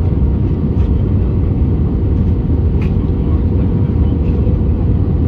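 Steady, loud low rumble of an airliner cabin in flight: engine and airflow noise with a faint steady hum above it.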